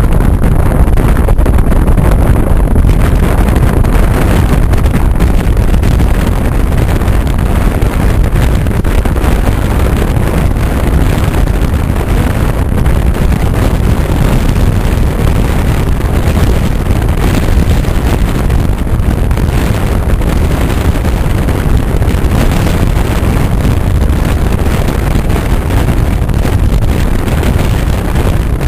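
Steady, loud rush of a moving car: road and engine noise mixed with wind buffeting the microphone.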